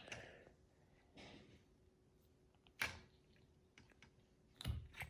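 A mostly quiet room with a few sharp clicks and knocks from LEGO pieces being handled and fitted on a table: a sharp click about three seconds in and a heavier knock near the end.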